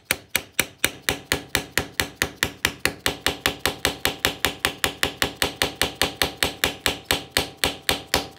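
Hammer tapping a metal pipe in quick, even strikes, about five a second, driving a new shift shaft oil seal into a Kawasaki Ninja 250's engine case through a washer; the pipe rings after each strike. The tapping stops at the end as the seal seats.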